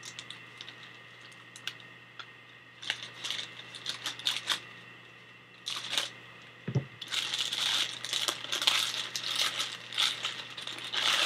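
Scissors snipping open a plastic mailer bag: a few short sharp clicks and handling noises. From about seven seconds in comes a dense run of crinkling as the plastic packaging is pulled open.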